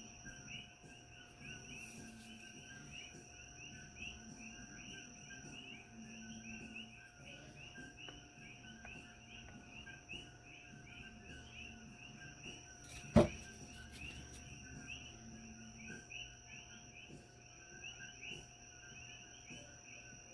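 Steady background chirping of insects, several short chirps a second, with one sharp knock about thirteen seconds in.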